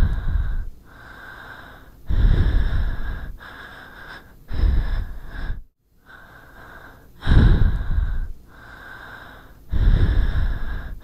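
Heavy breathing close to a microphone: five loud breaths about two and a half seconds apart, each lasting about a second, with a faint steady hiss between them.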